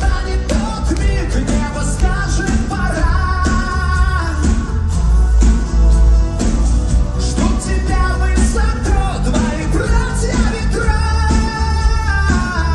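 Live rock-pop song played by a full band with heavy bass and drums, with long held sung notes over it.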